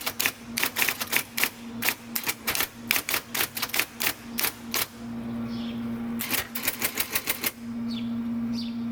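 IBM Correcting Selectric III electric typewriter typing: the golf-ball element strikes the paper in a steady run of keystrokes, about four a second, over the hum of the machine's running motor. The typing stops about five seconds in, a quick burst of faster clacks follows around six to seven seconds, and then the motor hums on alone.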